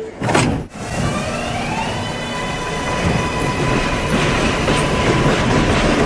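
R142 subway train pulling away: a brief thump near the start, then the traction motors whine upward in pitch for about two seconds and settle into a steady tone over the rumble and clatter of wheels on track.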